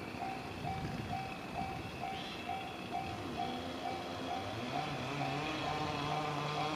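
Railway level-crossing warning alarm sounding its repeated electronic ding, a little over two strokes a second. In the second half an engine or motor hum comes in and grows louder as something approaches.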